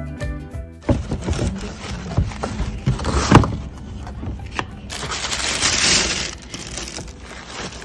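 Background music cuts off about a second in, giving way to tissue paper rustling and crinkling as it is handled and pulled back, with sharp crackles, the loudest about three seconds in.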